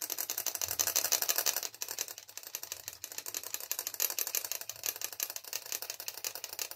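Tweezers stroked against the filed metal pipe of a small hand-made solder dispenser, giving a rapid, even ticking as the vibration shakes solder filings and borax out onto silver filigree.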